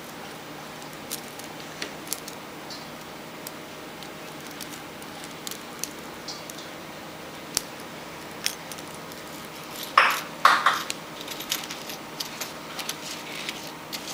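Aluminium soda-can pop tabs clicking and clinking against each other as they are handled and slipped together into chain mail, with a louder jingle of the tabs about ten seconds in.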